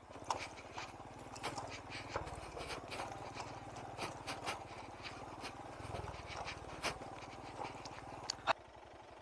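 Motorcycle engine running low and steady with an even pulse, under many scattered small clicks and rattles, as on a rough, rocky track; the engine sound drops away near the end.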